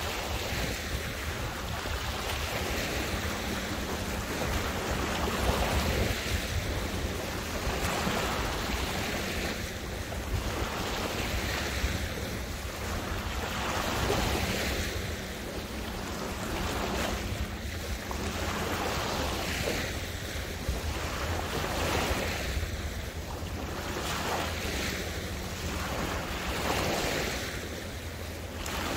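Small waves lapping and splashing in a steady rhythm, a swell about every two seconds, with a constant low wind rumble on the microphone.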